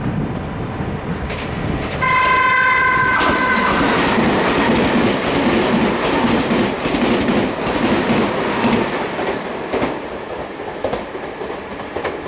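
Meitetsu 2200 series electric train passing through a station at speed, sounding its electronic and air horns together (電空) in a loud chord for under two seconds about two seconds in. The running noise of the passing cars follows, with wheels clattering over rail joints, and slowly fades.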